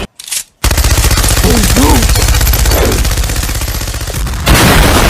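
Rapid automatic gunfire sound effect, a continuous run of fast shots starting about half a second in, with a few short voice-like calls over it in the middle; it gets louder near the end.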